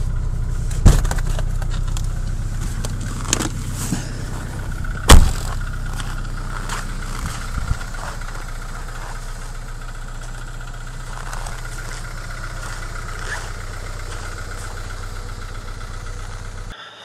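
Ford Transit Euroline's 2.0 DOHC four-cylinder petrol engine idling steadily after a cold start at about −30 °C, growing somewhat fainter after about six seconds. Two sharp loud knocks come about one second and about five seconds in.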